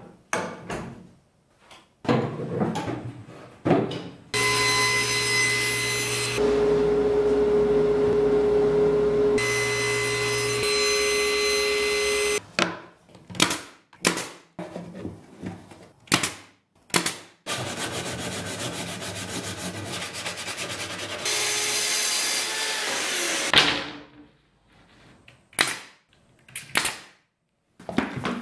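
Woodworking power tools running in two long stretches, with wooden knocks and clicks of parts being handled before, between and after. Near the end of the second stretch the motor is switched off and winds down in a falling whine.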